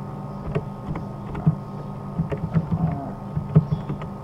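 Computer keyboard being typed on: irregular key clicks over a steady low hum.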